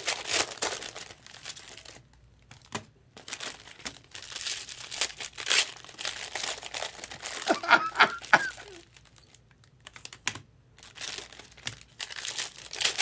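Trading card pack wrappers crinkling and being torn open in irregular bursts, with a couple of brief pauses. A few short squeaks come about eight seconds in.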